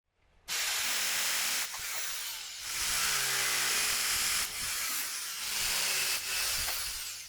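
A power tool working on metal: loud, steady hissing noise over a faint motor hum, with brief dips several times as the work eases off and resumes.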